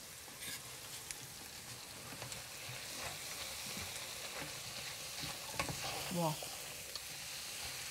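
Onions frying in lard in a stainless steel pot, a steady soft sizzle, with a spoon stirring through them at first. A short murmur from a voice comes about six seconds in.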